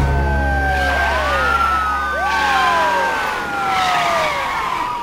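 Several police car sirens wailing together, their pitches rising and falling slowly and overlapping. A low steady drone sits beneath them for the first three seconds or so.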